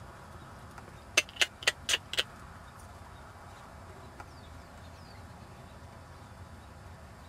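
Five quick, sharp tongue clicks about a second in, roughly four a second: a clucking cue urging the trotting pony on. Otherwise only faint open-air background.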